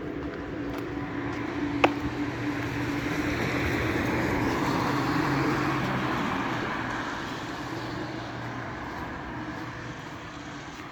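A vehicle passing: a rushing noise that swells to a peak about four to five seconds in and then fades away, over a steady low hum. A single sharp click comes just under two seconds in.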